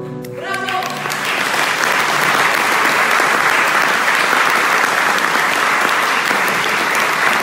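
The last notes of two plucked lutes die away, and an audience breaks into applause about a second in. The applause keeps going and cuts off abruptly at the end.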